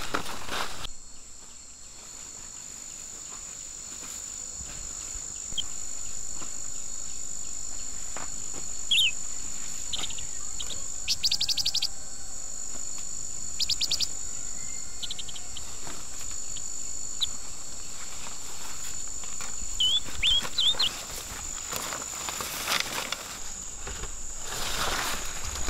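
Jungle insects keep up a steady high-pitched drone, with a few short bird chirps and two quick rattling trills about eleven and fourteen seconds in. Brief rustling in the undergrowth comes at the start and again near the end.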